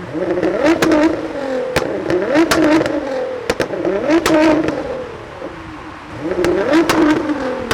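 Nissan GTR R35's twin-turbo V6 revved hard about four times. Each rev rises and falls back, with a string of sharp exhaust pops and bangs as the revs drop, from its pops-and-bangs map.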